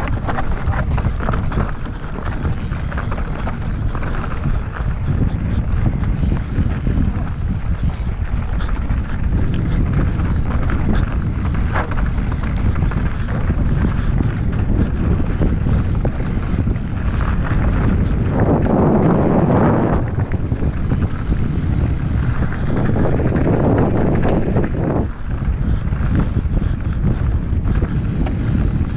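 Wind rushing over the microphone with mountain bike tyres rumbling and rattling over a dirt and gravel trail at speed. It grows louder for a couple of seconds about two-thirds of the way in, and again a few seconds later.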